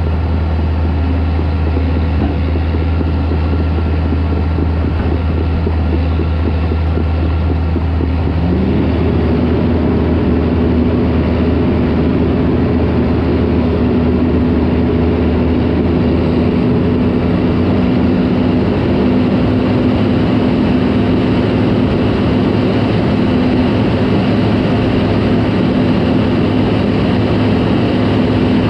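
Caterpillar D4 crawler tractor's diesel engine running steadily, then revving up about a third of the way in and holding the higher speed.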